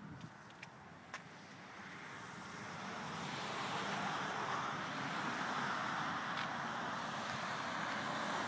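Road traffic noise that swells over a couple of seconds and then holds steady, with a few faint ticks near the start.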